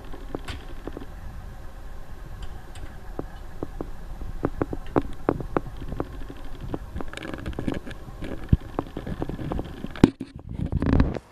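Low rumble inside a train driver's cab, with many short clicks and knocks scattered through it. A sharp loud knock comes near the end, followed by a brief louder swell that cuts off abruptly.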